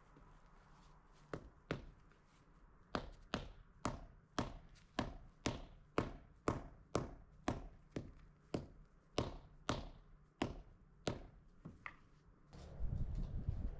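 Hammering: a steady run of about two dozen sharp strikes, roughly two to three a second, pausing briefly about two seconds in. A low rumbling noise comes in near the end.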